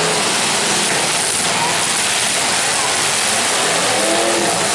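Demolition derby cars' engines running and revving together in a loud, unbroken din.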